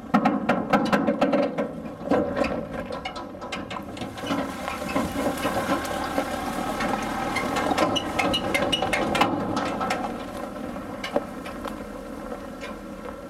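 Clattering and knocking of a Land Rover Defender towing an unbraked steel water bowser over a rough track: a quick run of sharp knocks in the first few seconds, then a steadier rattling, rushing noise that eases off in the last few seconds.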